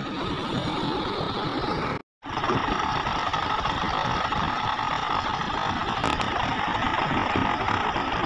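Diesel engines of hydraulic excavators running steadily while they dig. The sound cuts out completely for a moment about two seconds in, then resumes.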